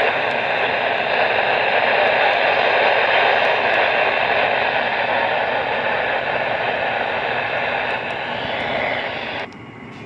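Midland NOAA weather radio's speaker giving out steady radio static while tuned to a weak channel, cutting off sharply near the end when the channel is changed.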